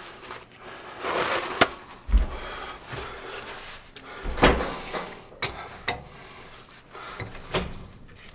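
Handling noise at a drain cleanout: a paper towel rustling as it is draped over the cleanout, and about five sharp clicks and knocks as Knipex pliers are set on the cleanout plug.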